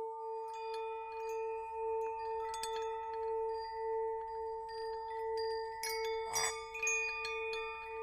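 Ambient electronic music: a steady, evenly pulsing drone under scattered high, chime-like ringing notes, with a brief noisy swell about six and a half seconds in.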